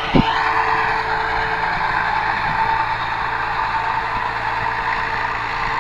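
NH Dabang 85 diesel tractor working a disc harrow, its engine running steadily under load, with a steady high whine over the drone.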